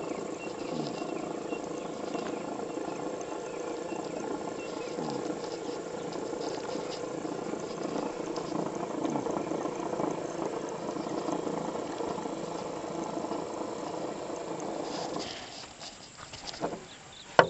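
Small 12-volt DC motor running steadily off a homemade aloe vera battery. It drops away about fifteen seconds in, and a single sharp click follows near the end.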